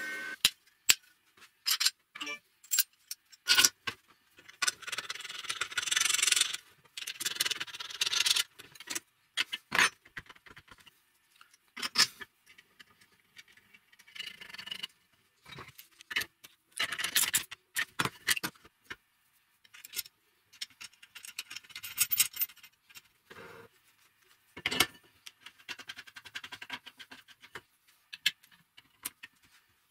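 Hand assembly of a homemade steel belt grinder: metal parts clinking, knocking and scraping as a roller is bolted onto its bracket and a gas strut is fitted to the tensioner arm. Scattered short clicks and scrapes with quiet gaps between them.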